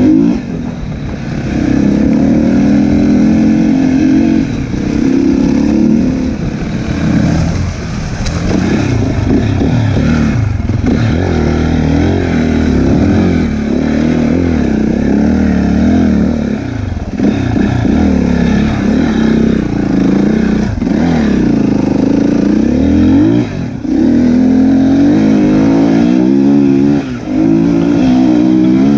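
Enduro dirt bike engine heard from on board while riding a rough trail, its pitch rising and falling constantly with the throttle. There are several short drops where the throttle is rolled off before it pulls again.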